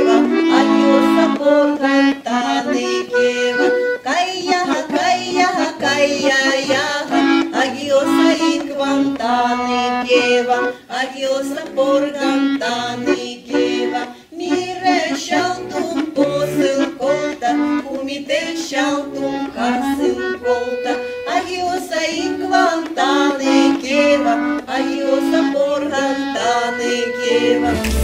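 Folk music with an accordion playing the melody over a steady accompaniment.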